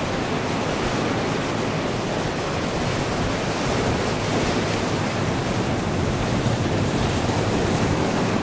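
The GE CF34-10E turbofan engines of an Azul Embraer E-Jet running at taxi power: a steady, even rushing noise that grows slightly louder in the second half as the jet turns its engines toward the listener.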